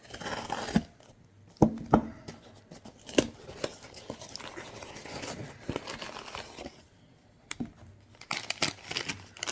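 Plastic packaging bag crinkling and tearing as a new holster is unwrapped, with several sharp clicks from handling and a burst of rustling near the end.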